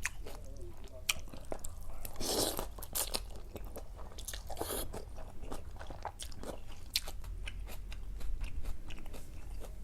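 A person chewing and crunching food close to the microphone, with many small wet mouth clicks and a couple of brief louder noisy bursts, about two and five seconds in.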